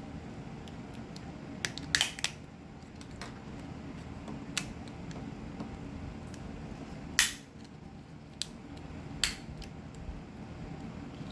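Sharp plastic clicks and light knocks from a remote control's case and a screwdriver being handled, about seven at irregular intervals, loudest about two seconds in and again about seven seconds in, over a steady low hum.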